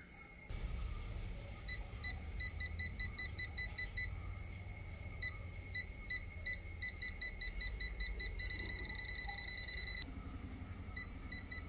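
Themisto TH-M100 multimeter's non-contact voltage detector beeping as it senses mains voltage at a wall socket. Short high beeps come unevenly at first, quicken into an almost unbroken tone, and cut off about two seconds before the end, with a few more beeps after.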